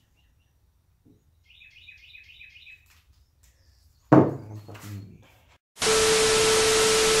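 A steady beep tone over loud static hiss, the sound effect of a 'technical difficulties, please stand by' TV test card, starting near the end and cutting off sharply. Earlier, a small bird chirps rapidly for about a second and a half, and about four seconds in there is a short loud vocal sound.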